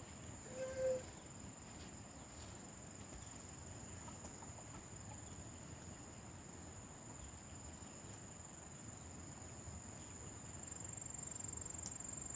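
Insects trilling in one steady, high-pitched note that grows a little louder near the end. A short call is heard about a second in.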